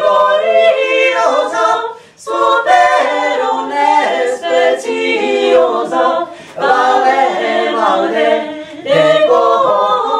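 A small ensemble of mixed women's and men's voices singing an early Czech cantio in three-part polyphony, a cappella. The phrases are broken by short breath pauses.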